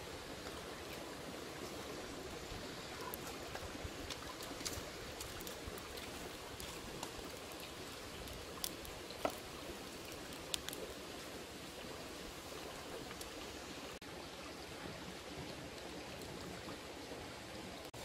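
Steady rush of a shallow stream running over stones, with a few sharp clicks about halfway through.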